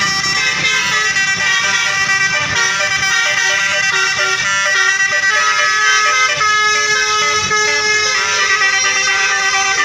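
Indonesian bus telolet horns playing a tune: a run of held notes that step in pitch, several tones sounding together.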